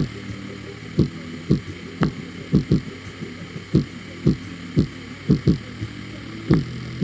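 High-powered 3,000-watt ported loudspeaker driven hard, pumping out a deep bass beat: short falling-pitch booms about twice a second, some in quick pairs, over a steady low hum.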